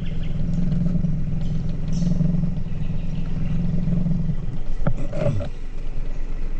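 Boat motor running steadily. It stops about four and a half seconds in, followed by a sharp knock and a short sliding sound.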